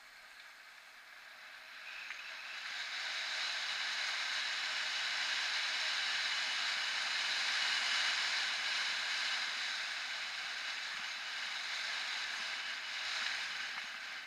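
Steady hiss of a mountain bike descending fast, from its tyres rolling on rough concrete and the rush of air past it. It builds about two seconds in and eases near the end.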